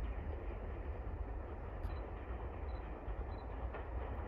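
LMS Stanier 8F 2-8-0 steam locomotive working in the distance as it approaches: a faint, steady rumble with no distinct exhaust beats.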